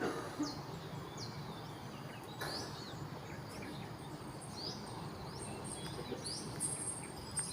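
A bird repeating a short, high chirp about once a second, over faint outdoor background noise.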